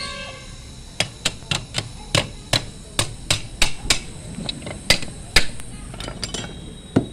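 A run of sharp hammer blows, about three a second, followed by a few lighter taps and one last knock near the end.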